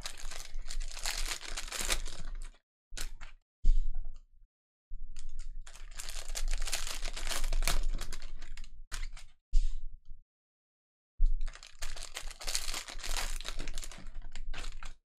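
Trading cards and their pack wrappers being handled: rapid clicking and rustling as cards are flicked through, with some crinkling and tearing. It comes in three long stretches, each cut off abruptly into dead silence.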